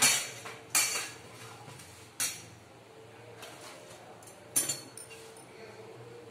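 A metal frying spoon clinking against a steel plate and the kadai as fried puris are lifted out and set down: four sharp, short clinks spread over several seconds.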